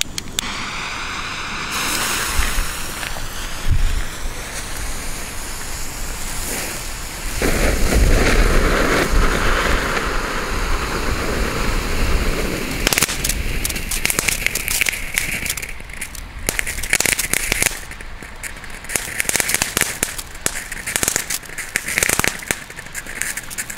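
Ground fountain firework (a Fire Cone) hissing steadily as it sprays sparks. It gets louder about seven seconds in, then sputters unevenly with many sharp irregular crackles.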